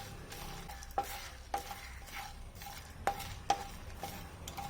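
Whole spices (cinnamon, star anise, cloves, cardamom, peppercorns, fennel, dried red chillies, poppy seeds) being dry-roasted and stirred in a metal pan: a faint dry scraping rustle, with several knocks of the spatula against the pan that ring briefly.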